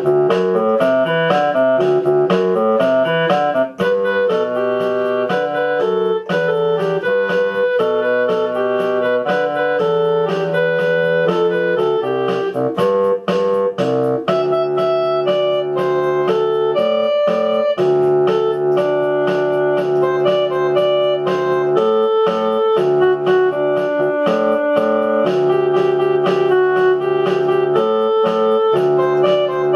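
Instrumental music played on keyboards, with a steady rhythmic pulse of notes.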